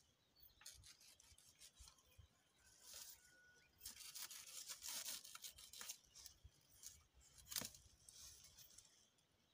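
Panga (machete) cutting into the fleshy leaves at the base of a sisal plant: a few faint chopping and tearing strokes spread over several seconds, the sharpest about three-quarters of the way through.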